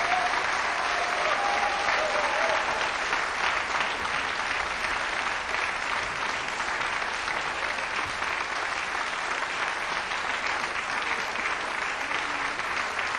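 Theatre audience applauding steadily at a curtain call.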